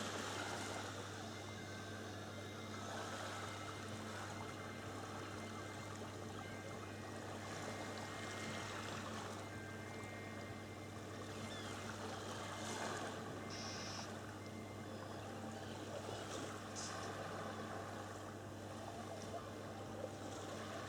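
Faint, steady wash of water noise with a constant low hum beneath it.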